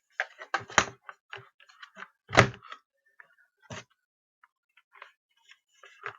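Scattered hard plastic clicks and knocks from a Bosch 7.2V cordless drill being handled, with no motor running. The loudest knock comes about two and a half seconds in.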